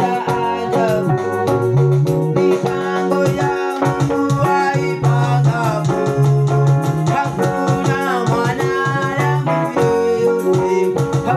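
Upbeat music with keyboard and a steady percussion beat.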